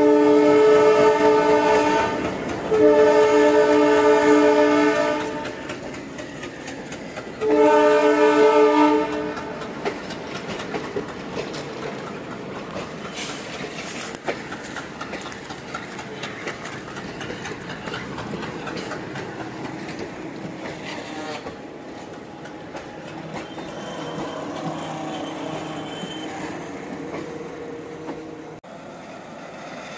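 Electric locomotive's horn sounding in three long blasts over the first ten seconds, the first already going and ending about two seconds in. After them, the steady running noise of the approaching train.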